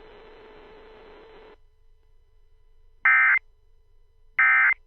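Hiss of the broadcast audio that cuts off about a second and a half in, followed by two short, loud, buzzy data bursts about a second and a half apart: the Emergency Alert System's SAME end-of-message code, sent at the close of the alert.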